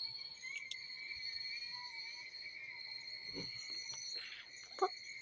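Insects trilling steadily at a high pitch, with a short, sharp vocal sound near the end.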